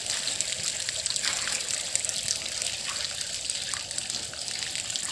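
A crowd of small fish thrashing at the surface of shallow water around a tank's drain standpipe: dense, steady splashing made up of countless tiny spatters and ticks.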